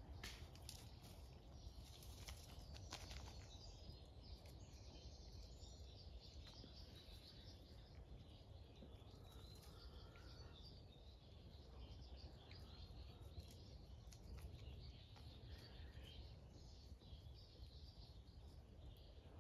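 Near silence: faint bird chirps come and go over a low, steady outdoor rumble, with a few light ticks in the first few seconds.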